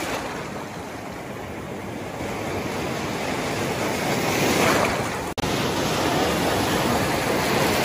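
Sea surf breaking on a sandy beach right at the microphone: a continuous rush of churning water and foam that swells to its loudest a little past halfway as a wave comes in.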